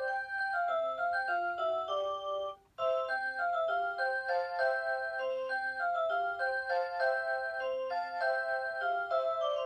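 Rhythm Watch Aria Cantabile alarm clock playing a chiming several-part melody on its 'Aurora Sound' electronic melody source. The music breaks off briefly about two and a half seconds in, then carries on.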